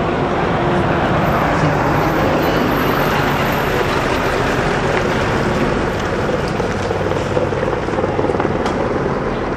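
Steady, continuous engine noise of heavy machinery running, loud and unbroken.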